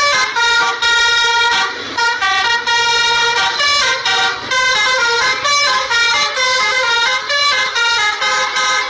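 Telolet multi-tone horn playing a tune: several notes sounding together, stepping quickly from pitch to pitch in short phrases with brief breaks between them.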